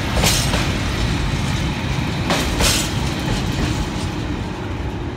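Rail tank wagons of a freight train rolling past, their wheels clacking over rail joints, with a double clack about two and a half seconds in, over a steady low rumble that fades a little near the end as the last wagon draws away.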